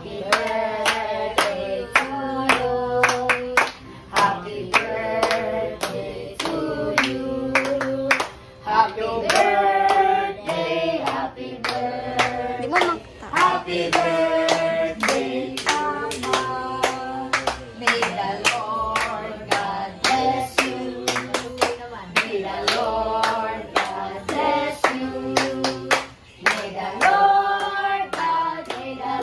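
A small group of adults and children singing a birthday song together while clapping along in time, about two claps a second.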